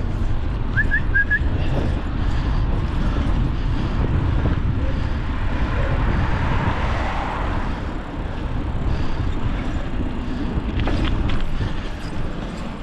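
Wind buffeting the microphone on a moving bicycle: a steady low rumble, with a few short high chirps about a second in.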